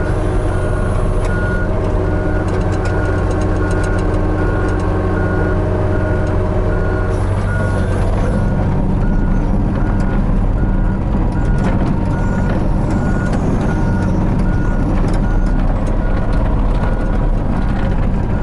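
Hitachi 35U mini excavator running, its diesel engine humming steadily while the travel alarm beeps in an even, repeating pattern, the sign that the tracks are moving. Scattered sharp clicks and clanks sound over it.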